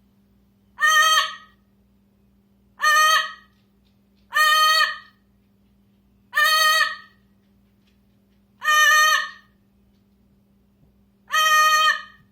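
A bird giving six loud, short calls, each about half a second long, spaced a second and a half to two and a half seconds apart, over a faint steady hum.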